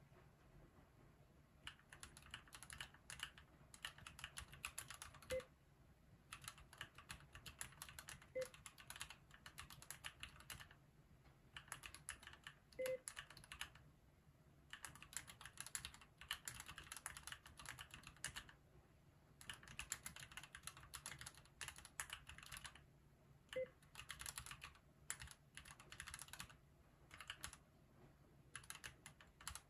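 Fast typing on a Keychron Q2 mechanical keyboard: runs of rapid keystrokes a few seconds long, separated by short pauses. Four brief soft beeps come in among the runs.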